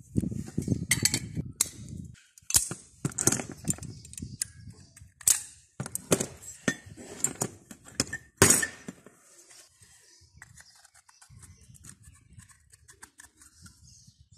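Irregular metallic clinks and knocks as steel locking pliers and parts are handled and tapped with a small hammer, the loudest strike about eight and a half seconds in. After about nine seconds only faint handling clicks remain.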